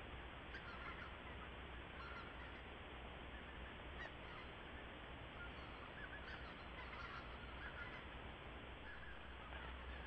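Faint, distant flock of geese calling, many short overlapping honks scattered through, over a steady background hiss.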